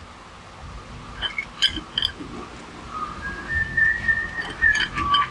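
A person whistling a few held notes that step up and down in pitch, starting about halfway through. Light metallic clinks of tools and engine parts come early on and again near the end.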